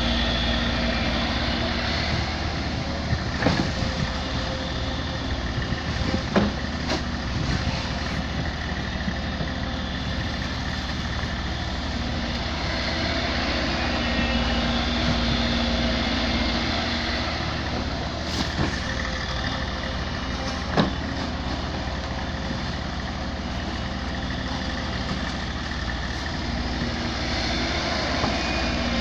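SANY SY140 excavator's diesel engine running steadily, with a few sharp knocks or clanks scattered through.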